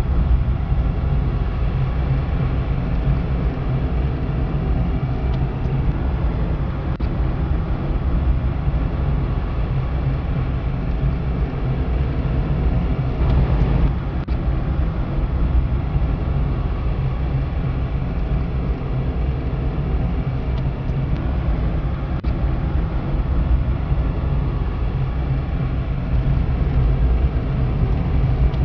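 Car engine and tyre noise heard from inside the cabin while driving along a road, steady throughout.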